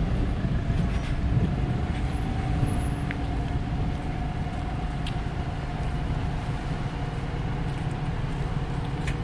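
City bus driving past at close range, a steady low rumble with a thin whine held through it that sags slightly in pitch.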